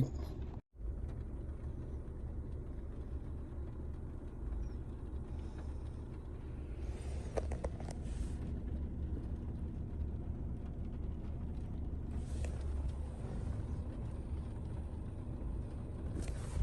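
A car idling, heard from inside the cabin as a steady low rumble, with a couple of light rustles midway.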